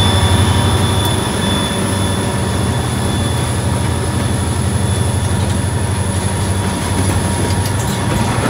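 Freight train passing close by: a diesel locomotive goes past, then boxcars roll by on the rails, with a steady, loud low rumble.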